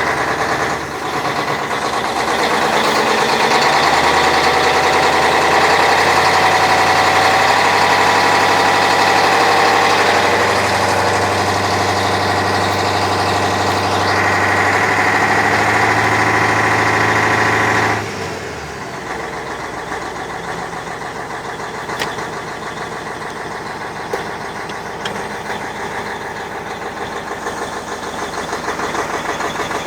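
YaMZ-6581.10 diesel engine running at raised revs, then dropping back to a quieter, even idle about two-thirds of the way through. The engine has a knock that the owner cannot place.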